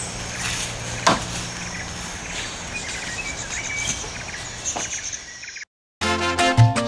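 Outdoor ambience: a steady low hum with scattered bird chirps and one sharp click about a second in. Near the end the sound drops out for a moment at an edit, then salsa music with a strong beat starts.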